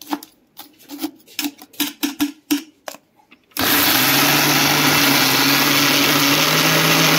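A steel spoon clinks and scrapes against a small steel grinder jar and its lid. About halfway through, an Indian mixer grinder's motor starts and runs at a steady pitch, grinding Oreo biscuits to a dry powder.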